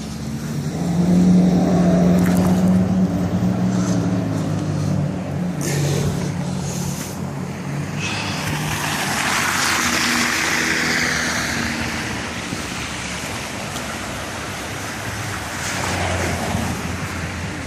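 Motor vehicles going by on a snow-covered street: a low engine hum for the first several seconds, then a swelling and fading hiss of tyres as another vehicle passes, and a further low engine swell near the end.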